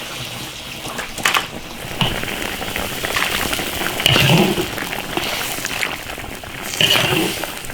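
Stewed air-dried chicken and potatoes being dished out of an iron wok: a metal ladle scraping through the stew with a few sharp knocks against the wok.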